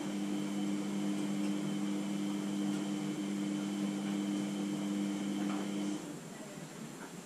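Hair dryer on its low setting running steadily with a hum and airy hiss, switched off abruptly about six seconds in. It is warming a vinyl sticker so the sticker moulds to the drone's plastic.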